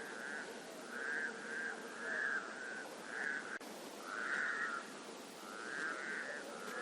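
Frogs calling at a forest lake: short, pulsed calls repeating about once a second over a steady background.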